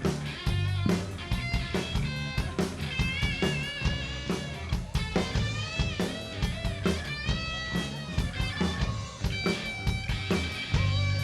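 Live rock band playing an instrumental passage: a lead electric guitar holds and bends sustained notes with wide vibrato over steady drums and bass.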